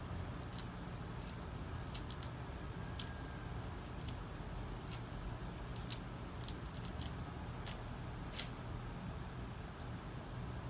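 A knife cutting up vegetables held in the hand: irregular sharp clicks as the blade cuts through, over a low steady background rumble.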